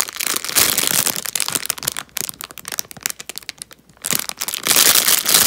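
Clear plastic packaging bag crinkling as a squishy toy inside it is squeezed and handled. The crinkling comes in two dense spells, with scattered crackles in the quieter stretch between them.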